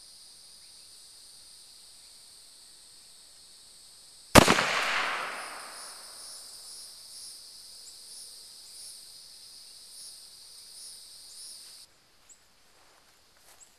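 A three-barreled .36-caliber Duck Foot black-powder volley pistol firing, its barrels going off together as one sharp shot about four seconds in, followed by an echo that fades over a second or two.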